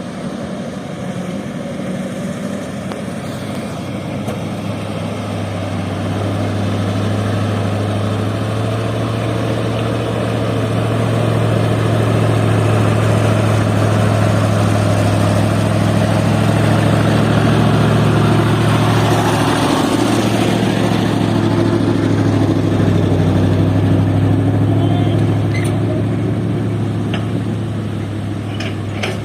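Heavy diesel engine running steadily under load. It grows louder over the first several seconds, holds, briefly dips in pitch about twenty seconds in, then eases off near the end.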